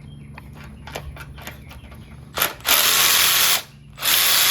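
A hand ratchet wrench clicking in short, irregular strokes as a fastener is turned. Then two loud, steady hisses of about a second each, like a spray blast.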